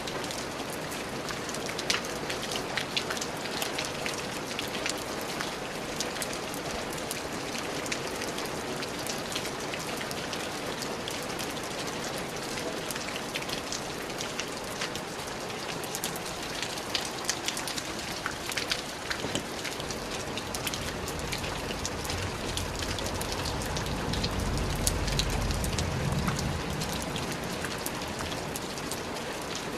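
Steady rain falling on a surface, with many individual drops ticking through a dense hiss. About two-thirds of the way through, a low rumble swells for several seconds and fades.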